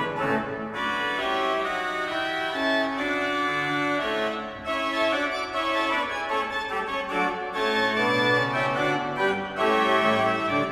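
Church pipe organ playing a piece in several voices: sustained chords with notes changing every half second or so over a moving bass line.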